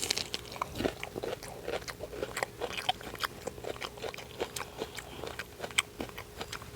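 Close-up eating sounds: a bite right at the start, then steady chewing with many small wet clicks and crunches, from an English-muffin sandwich filled with deviled egg and lettuce.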